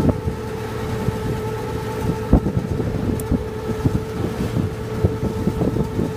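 Motor launch's engine droning steadily while under way, with wind buffeting the microphone and a single knock a little over two seconds in.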